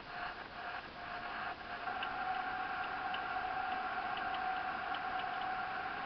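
Steady drone of a car driving at speed, heard from inside the cabin, with a thin steady tone running through it. There are a few soft knocks in the first second and a half, and faint light ticks after that.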